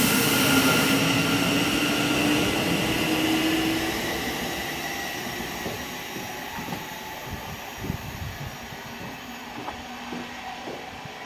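Great Northern electric multiple unit pulling away past the platform, its traction motors whining with a slightly rising pitch over the rail and wheel noise. The sound fades steadily as the train draws away.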